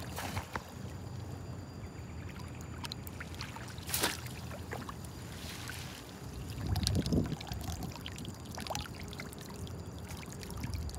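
Water splashing and sloshing as a landing net is scooped through shallow water, loudest about six to seven seconds in. A sharp click comes about four seconds in.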